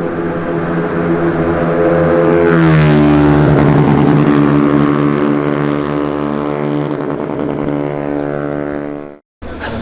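Cub Prix underbone racing motorcycle at high revs passing by: its engine note drops in pitch about three seconds in as it goes past, then slowly fades. The sound cuts off abruptly near the end, and another engine comes in.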